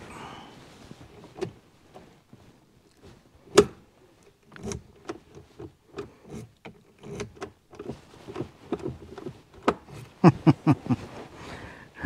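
Handling noise from the camera: cloth rubbing against the microphone, with scattered clicks and knocks. There is one sharp click about three and a half seconds in and a quick run of knocks near the end.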